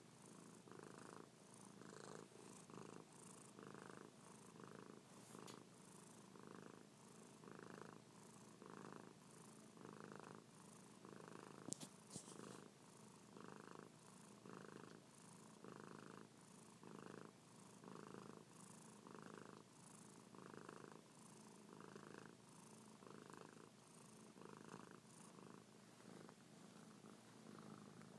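Domestic cat purring softly right at the microphone, the purr swelling and fading about one and a half times a second with each breath in and out. A single sharp click about twelve seconds in.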